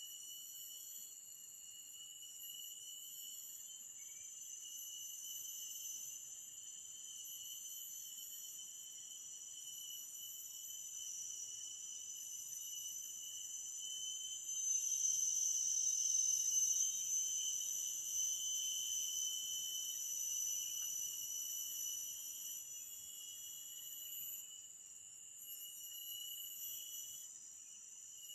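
Forest insects calling together in a steady, high-pitched chorus of several layered trills, swelling louder in the middle and easing off again near the end.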